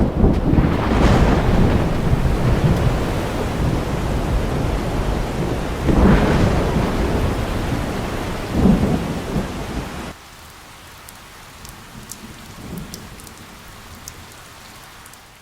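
Thunderstorm: thunder rumbling over heavy rain, swelling loudest about a second in and again about six seconds in. About ten seconds in it cuts suddenly to a quieter steady rain hiss with scattered faint ticks.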